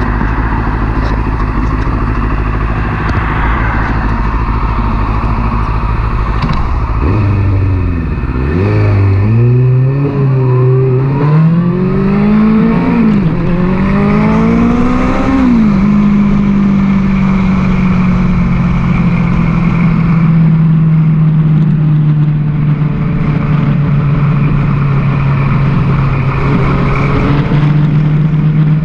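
Yamaha sport bike's engine pulling hard through the gears, its pitch climbing and dropping back at each upshift three times, then holding steady at cruising speed. Heavy wind noise on the microphone underneath, strongest in the first several seconds.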